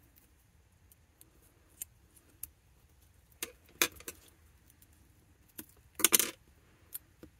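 Light scattered taps and clicks of cardstock pieces being handled and pressed down on a craft mat, with a short louder rustling clatter about six seconds in.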